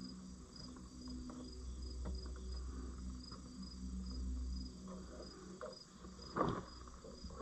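An insect chirping in an even rhythm, a short high chirp a few times a second, under a low hum that stops a little past halfway. There are small clicks throughout and one louder knock about six seconds in.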